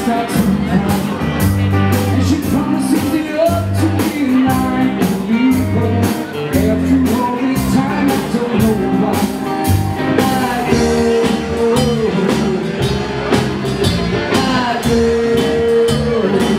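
Live rock band playing a song: a steady drum beat, bass and electric guitar, with a man singing into the microphone.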